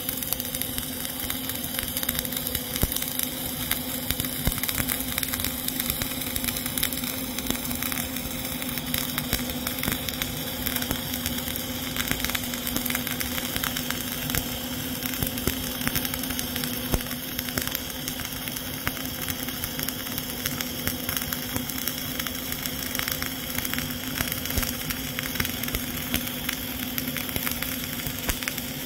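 Flux-cored arc welding arc crackling and sizzling steadily with CO2 shielding, laying the seventh pass, the start of the final cap layer of a horizontal (2G) groove weld. A steady low hum runs underneath.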